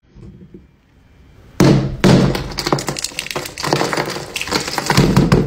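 A liquid-nitrogen-frozen candy ball being cracked open by hand, its brittle frozen shell breaking. About one and a half seconds in, a dense run of sharp cracks and crunches starts and keeps going.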